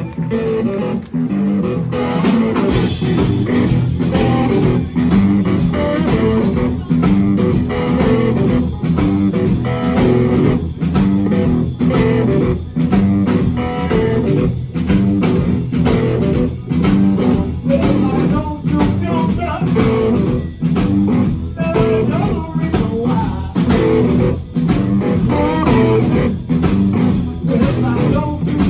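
Live blues band of two electric guitars and a drum kit playing a driving, steady groove, the full band coming in about two seconds in.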